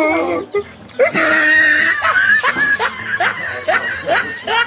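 A person laughing hard in quick repeated bursts.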